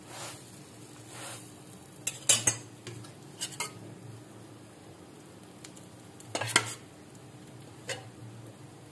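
A metal spatula scraping and clinking against a cast-iron tawa in short strokes, about two, three and a half, six and a half and eight seconds in. Under it an egg paratha sizzles as it fries.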